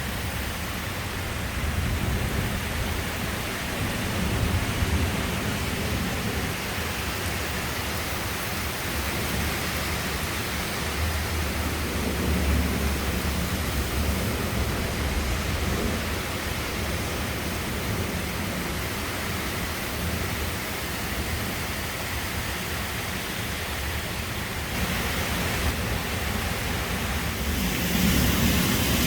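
Heavy rain and strong wind of a thunderstorm downburst: a steady, dense hiss with a low rumble that swells now and then and grows louder near the end.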